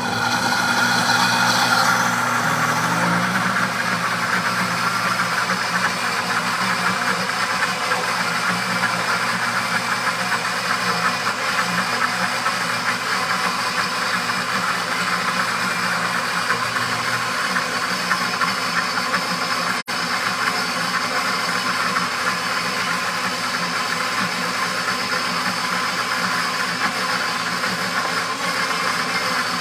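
Pampered Chef Deluxe blender motor spinning up, then running steadily as it grinds peanuts into smooth, pourable peanut butter.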